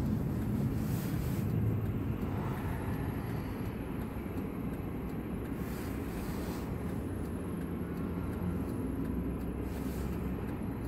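Steady low hum of a car's engine and tyres, heard from inside the cabin while driving.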